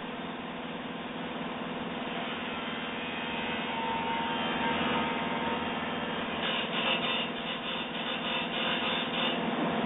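Lapidary ultrasonic drilling machine running with a steady hum while its bit rubs and grinds against the workpiece; about two-thirds of the way through the grinding turns into a rapid, scratchy chatter for a few seconds.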